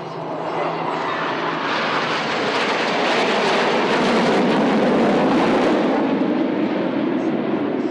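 Formation of Black Eagles KAI T-50B jet trainers, each with a single F404 turbofan, passing overhead: the jet noise swells to a peak about halfway through, then slowly fades.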